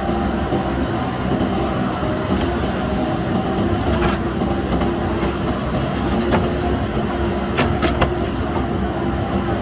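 JCB backhoe loader's diesel engine running steadily under working load, with a few sharp knocks about four seconds in, past six seconds and near the end.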